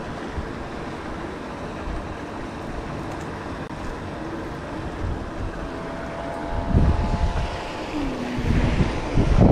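Wind buffeting the microphone as a steady low rumble, with louder gusts in the last few seconds.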